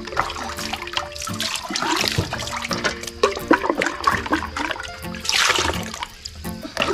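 Water sloshing and splashing as a cut green bamboo tube is rinsed out in a bucket of water, with a louder gush about five seconds in. Background music plays underneath.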